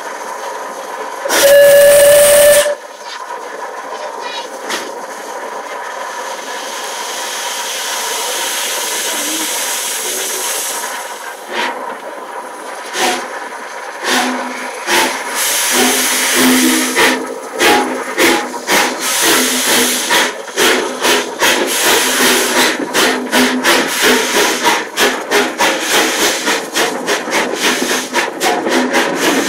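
Steam locomotive 34046 Braunton, a Bulleid West Country class Pacific, gives one short whistle on a single tone, then steam hisses steadily as it starts away. From about the middle its exhaust beats begin, getting quicker as the train gathers speed.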